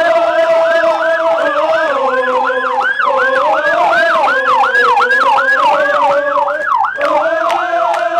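Police escort siren in a rapid yelp, about three falling sweeps a second, breaking off briefly near seven seconds before starting again. A lower steady tone runs underneath, its pitch shifting a few times.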